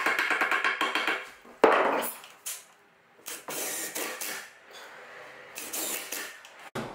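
Wooden handrail and newel post being handled and knocked together: a quick rattle of small knocks, a single sharp wooden knock about a second and a half in, then scraping and rubbing of wood.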